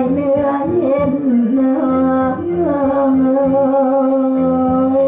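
A hoarse voice singing a Thai lae melody, drawing out long wavering notes, over musical backing.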